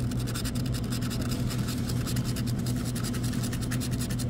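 Scraping the latex coating off a scratch-off lottery ticket with a scratcher: many quick back-and-forth strokes in a rapid, even rhythm. A steady low hum runs underneath.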